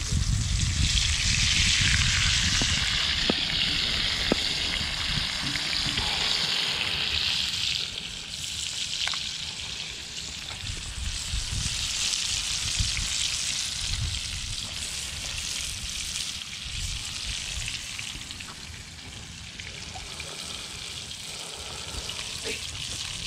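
Red rock cod fillets sizzling in hot oil in a cast-iron skillet over a wood fire, with a few scattered pops. The sizzle is loudest for about the first eight seconds, then eases to a softer steady frying.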